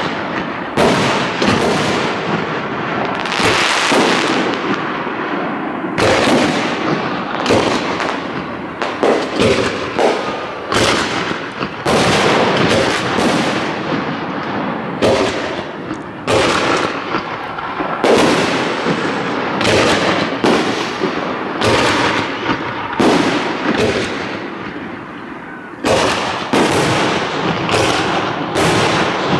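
Aerial fireworks shells bursting in a dense barrage of loud bangs, often less than a second apart, each trailed by a short echo.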